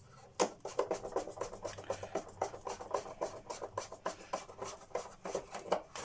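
A screwdriver turning a screw into the plastic body of a Hoover Junior upright vacuum cleaner: a quick, irregular run of scratchy clicks.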